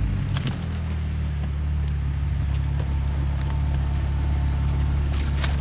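A 2004 Audi Allroad's 2.7-litre twin-turbo V6 running at low revs as the car creeps forward: a steady, low engine drone with a few faint clicks near the end.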